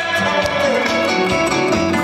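Live band music with a guitar prominent, accompanying a trot song on stage.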